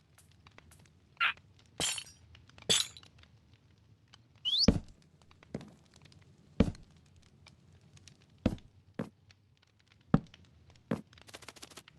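Irregular knocks, taps and clinks of small hard objects being handled and set down, about ten in all, with a short rising squeak about four and a half seconds in and a quick run of ticks near the end.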